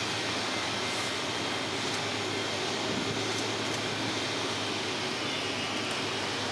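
Steady mechanical drone and rush from the passing cruise ship MS Maasdam's engines and ventilation fans, carried across the water.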